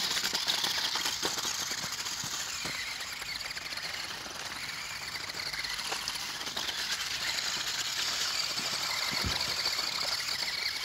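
Small electric drive motors of a Spin Master All-Terrain Batmobile RC monster truck whining steadily as it drives through a shallow puddle, with a few faint clicks.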